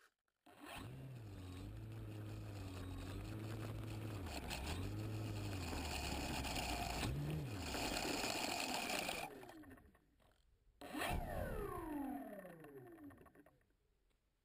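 A scale radio-controlled Tiger Moth model's engine turning its propeller. It starts about half a second in, runs with a steady wavering note, and cuts out sharply after about nine seconds. A second or so later it catches briefly, then runs down with a falling pitch until the propeller stops near the end.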